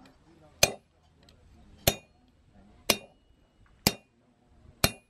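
Blacksmith's hammer striking a hot iron bar on an anvil, five blows about a second apart, each with a short metallic ring, straightening the bar.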